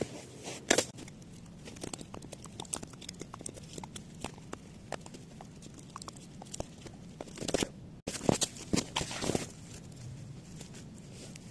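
Wood campfire crackling: a steady patter of small snaps and pops from the burning firewood, with a few louder pops, most of them about eight to nine seconds in.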